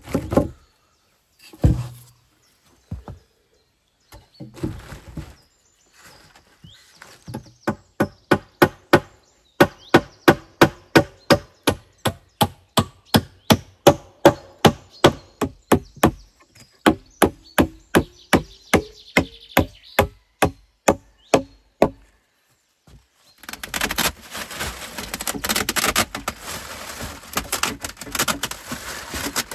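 A few heavy thuds of logs being set down, then a long, steady run of sharp strikes on wood, about three a second, for some fifteen seconds. Near the end it gives way to the crackling rustle of a plastic tarp being pulled over a woodpile.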